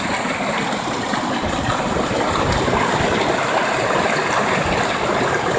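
Creek water rushing steadily over a rock ledge in a small cascade, heard close up.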